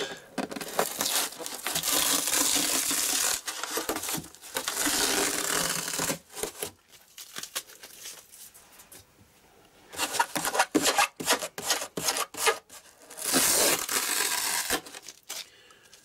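Strong adhesive tape being peeled off Styrodur foam in several long tearing pulls, with crackling between them and a quiet pause in the middle; the tape grips almost too hard.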